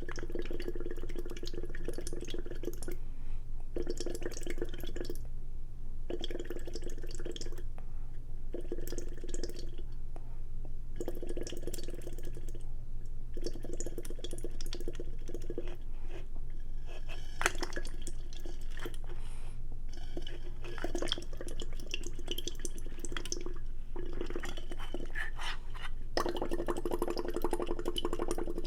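Close-miked eating sounds: wet slurping and mouth noises in repeated bursts a second or so long, with short pauses between, over a steady low hum.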